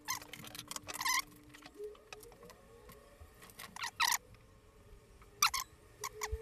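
Scattered small clicks and taps of metal tweezers and hand tools being handled and set down on a silicone work mat, over a faint steady hum.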